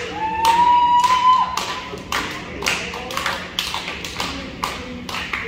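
Small crowd clapping in a steady rhythm, about two claps a second, with one long, slightly rising shout about half a second in.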